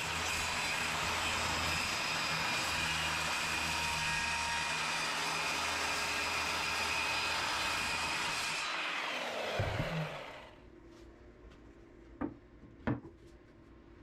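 Power saw running and cutting plywood, a steady whine over the cutting noise; about nine seconds in it is switched off and the blade winds down in pitch to a stop. Two light knocks follow near the end.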